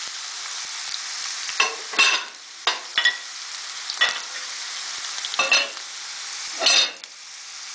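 Chopped onions sizzling in olive oil in a frying pan, with a utensil scraping and knocking against the pan about seven times as they are stirred.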